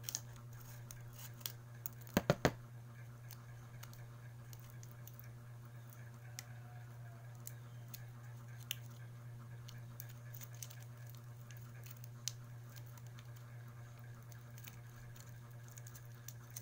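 Small clicks and crinkles of a Myra E vitamin E capsule blister pack being handled, with capsules pressed out and squeezed open, including a quick cluster of sharp clicks about two seconds in. A steady low hum runs underneath.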